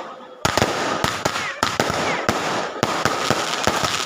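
Fireworks going off in quick succession: many sharp bangs over dense crackling, starting about half a second in, with a few short whistles partway through.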